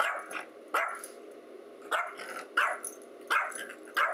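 Yorkshire terrier barking at its own reflection in a mirror, taking it for another dog. About six short, sharp, high barks come roughly one every two-thirds of a second.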